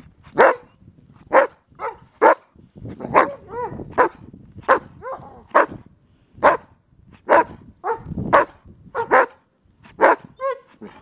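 A dog barking repeatedly, about one sharp bark a second, with a few drawn-out, higher yelps mixed in.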